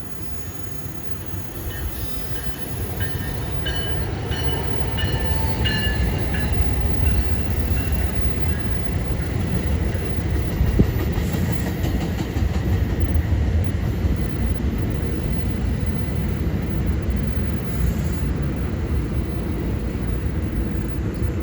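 Passenger train passing close by on the electrified Northeast Corridor: a steady rumble of wheels on the rails that builds over the first few seconds and then holds, with faint high tones early on.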